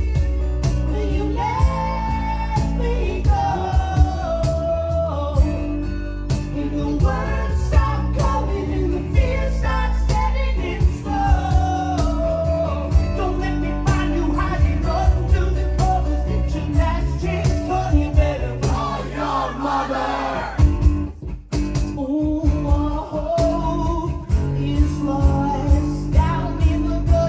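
Live acoustic rock band playing: a voice singing over acoustic guitars, with a steady beat of percussive hits and a brief break in the playing about three-quarters of the way through.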